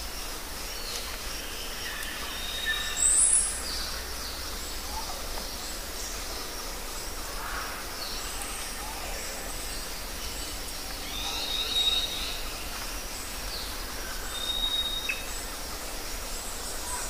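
Woodland ambience: a steady background hiss with scattered short, high bird whistles, and a sharp, very high call about three seconds in that is the loudest moment.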